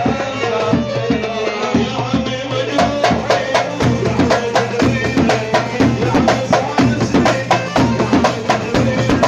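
Instrumental Iraqi folk party music: a melody carries on after the sung line, and about three seconds in a fast, even drum rhythm comes in under it.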